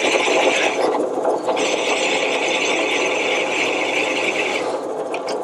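Drill press running with its bit cutting into a Ford Model T transmission brake drum, removing metal at the drum's heavy spot to balance it. The high cutting sound breaks off for about half a second a second in, then resumes and stops shortly before the end while the press keeps running.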